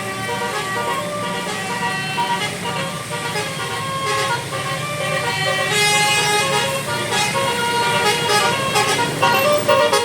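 A tour bus's Basuri telolet multi-tone horn playing a melody, its notes stepping from pitch to pitch over the low hum of the bus's engine. The tune turns brighter and louder about six seconds in.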